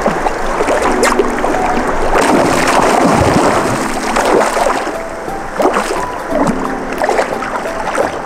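Flowing river water with small splashes close to the microphone, under background music with long held notes.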